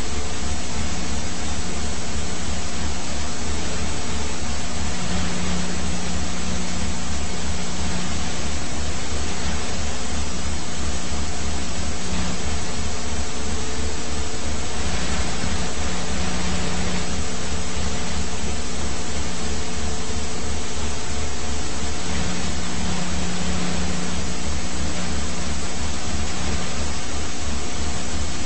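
Steady helicopter noise picked up aboard the aircraft: a fast low pulsing from the rotor under an even rushing hiss, with a few steady hums from the engine.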